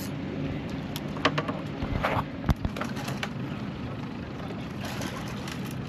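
Steady low motor hum, with a handful of sharp clicks and dull knocks about one to three seconds in.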